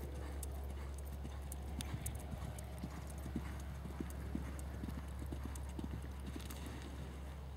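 Hoofbeats of a 2006 American Quarter Horse gelding loping on soft arena sand: a run of soft, irregular thuds that thin out near the end.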